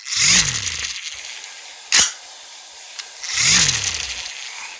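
Electric fan blowing, heard as two choppy whooshing swells with a sharp click between them.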